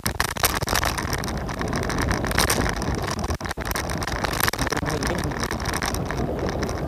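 Wind buffeting the microphone and rolling road noise while riding a scooter, dipping briefly about halfway.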